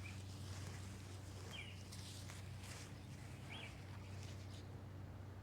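Faint outdoor ambience: a few short bird chirps, about one every two seconds, over a steady low hum, with soft scraping noises around the middle.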